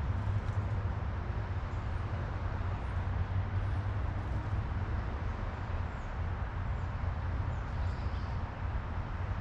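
Steady low outdoor rumble, with a few faint, short, high-pitched bird chirps scattered through it.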